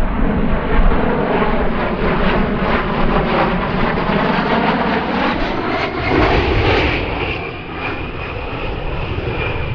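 A-10 Thunderbolt II jet passing in a display flyby, its twin TF34 turbofan engines running loud. The pitch shifts as it goes by about six seconds in, and a high steady whine is left near the end.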